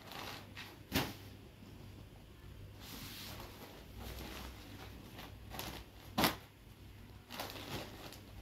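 Folded cotton sarees and a paper catalog card being handled and set down on a cloth-covered surface: soft rustling with a sharp tap about a second in and a louder one about six seconds in.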